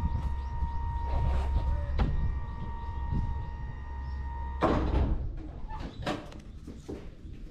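A ferry's powered boarding gangway lowering: a steady motor hum and whine that stops about four and a half seconds in with one loud clunk as the ramp settles. A few lighter knocks follow.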